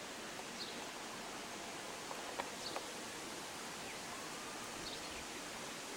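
Outdoor ambience: a steady hiss, with a few faint, short high chirps and a few light clicks.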